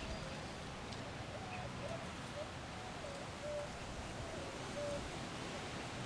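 Wind blowing through a large leafy tree, a steady rustling hiss with some low rumble. Short, soft, low bird calls repeat every second or so.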